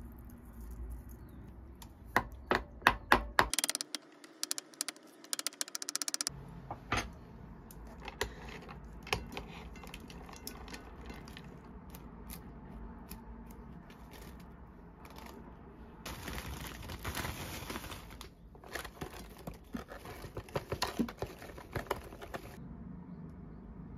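Food preparation sounds: a spoon clinking and scraping against a ceramic bowl in a quick run of taps, then scattered clicks and a spell of rustling as bean sprouts, vegetables and pork slices from a plastic tray are handled into a pot.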